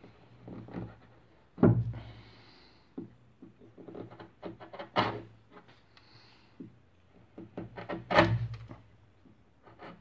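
Wood chisel paring and notching a piano bridge by hand: runs of short, crisp cuts and scrapes as chips come away, with two heavier knocks, one about two seconds in and one about eight seconds in.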